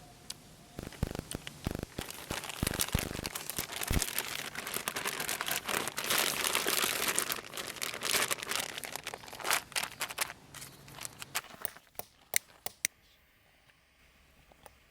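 Crinkling and rustling of something being handled, with a few low knocks in the first few seconds. It stops abruptly about 13 seconds in.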